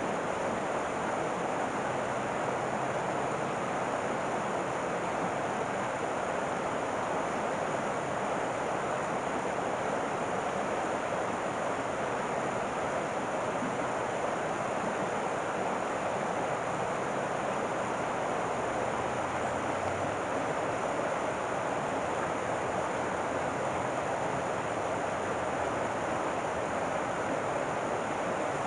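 Steady rushing of river water, an even whoosh that holds at one level throughout.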